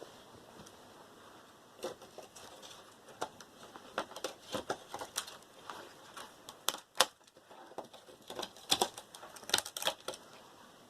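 Irregular sharp clicks, snaps and taps of hand tools cutting and prying small components off a computer motherboard. The strokes come more thickly in the second half, with the loudest snaps about seven and nine seconds in.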